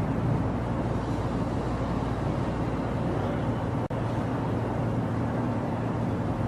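Steady low rumble with hiss, unbroken except for a split-second dropout about four seconds in.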